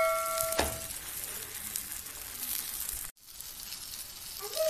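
Oiled mhadjeb dough sizzling softly on a hot flat griddle. A metallic ring dies away in the first second, with a single knock about half a second in and a brief dropout around the three-second mark.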